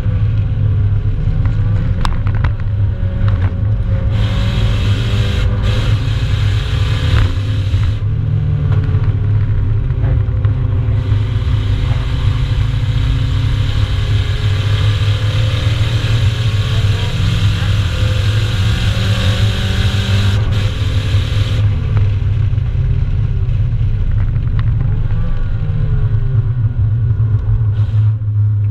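Nissan 200SX's turbocharged four-cylinder engine driven hard on track, heard from inside the cabin. Its pitch climbs and falls repeatedly through the gears over a heavy low drone. A loud hiss comes in for stretches of several seconds and drops out in between.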